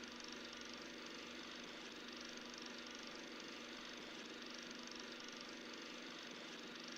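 Film projector sound effect: a steady mechanical whir with a fast, even clatter of the film running through.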